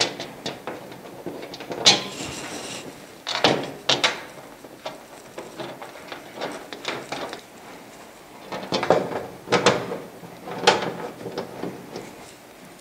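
Irregular knocks and clatter of a dehumidifier's rear cover panel being handled and fitted into place, with clusters of sharper knocks about two seconds in, around four seconds in and again past nine seconds.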